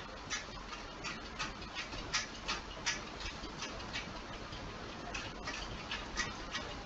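Light, irregular clicks from a computer mouse, two or three a second, as a web page is clicked open and scrolled, over a faint low hum.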